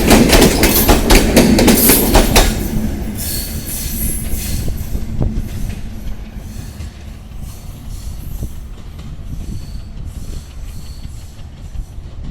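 Moitree Express passenger train running past: wheels clattering rapidly over the rail joints. The clatter drops sharply after about two and a half seconds, leaving a quieter run of clicks with faint wheel squeal.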